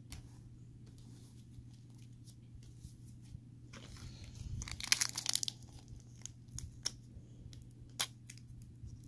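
Foil wrapper of a trading-card pack crinkling and tearing as hands try to rip it open: a burst of rustling about four seconds in, then a few sharp crackles.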